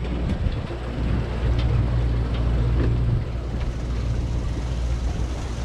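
Party boat's engine running with a steady low drone, under a haze of wind and sea noise.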